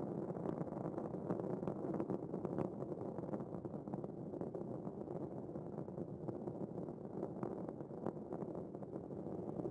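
Space Shuttle rocket rumble during ascent: a steady, low rumble with faint scattered crackle.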